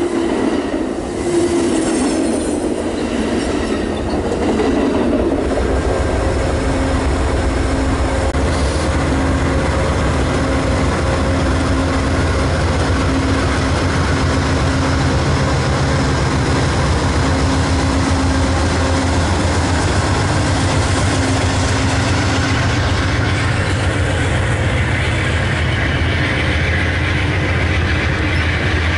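Train on the line: a diesel locomotive's horn trails off in the first couple of seconds, then the rumble of the wheels and the steady drone of the diesel engines carry on.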